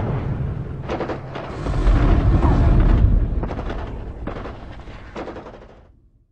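Title-sting sound effects of war: deep booming like artillery and explosions under a low rumble, with several sharp cracks, fading away near the end.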